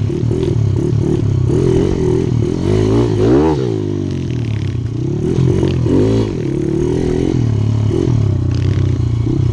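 Mini bike engine running under the rider's throttle, its pitch rising and falling several times as it is revved up and let off, with the sharpest rise about three and a half seconds in.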